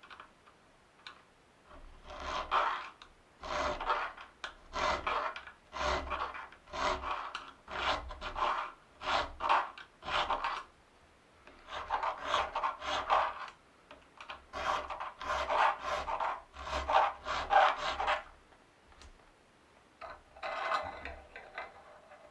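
Hand tool working wood in repeated back-and-forth strokes, about one a second, in runs with short pauses and one last stroke near the end.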